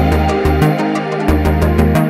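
Electronic background music with a steady beat and heavy bass that drops out briefly.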